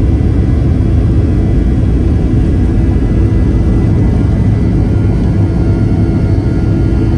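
Boeing 737-800's CFM56-7B jet engines running at high power during the climb after takeoff, a loud steady rumble with a faint steady hum over it.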